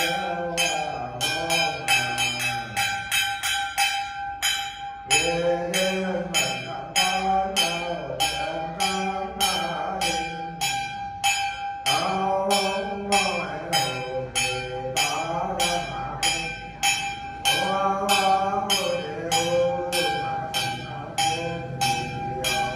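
Ritual hand bells shaken in a quick, steady beat with a sustained ringing tone, under a man's ritual chanting in phrases.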